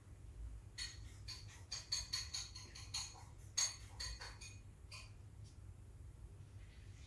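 A quick, uneven run of light clicks and clinks with a slight ring, starting about a second in and stopping after about four seconds, over a low steady hum.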